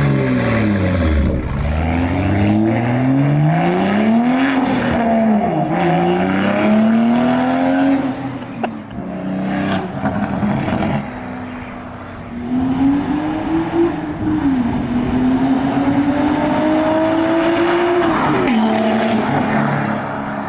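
Toyota A90 Supra with an aftermarket RK exhaust accelerating hard past, its exhaust note climbing through the revs and dropping sharply at each gear change. The pitch falls over the first second or so, then climbs and breaks several times, with a long climb near the end that cuts off at a shift.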